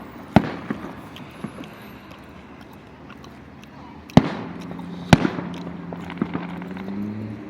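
Aerial fireworks bursting: three loud booms, about half a second in, about four seconds in, and a second after that, with smaller pops and crackles between them.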